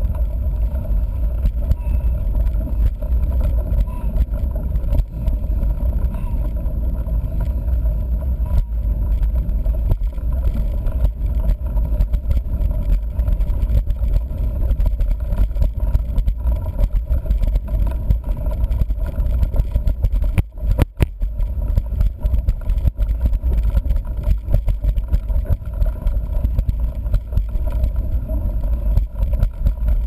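A 29-inch-wheeled mountain bike rolling along a dirt trail: a steady rumble of the tyres with small rattles and knocks of the bike, and wind buffeting the fork-mounted camera's microphone. The noise drops away briefly about two-thirds of the way through.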